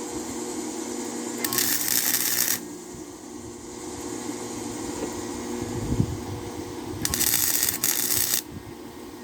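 Two short bursts of electric welding arc crackling, each lasting a little over a second, the first about a second and a half in and the second about seven seconds in: tack welds joining saw-blade steel to the hatchet. A steady low machine hum runs underneath.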